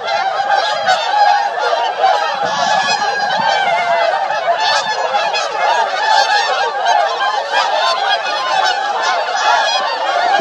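A flock of geese honking without a pause, many loud calls overlapping one another.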